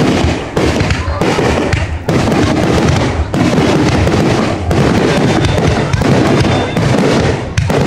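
Fireworks display going off in a rapid, continuous barrage of bangs and crackles, with hardly a gap between them.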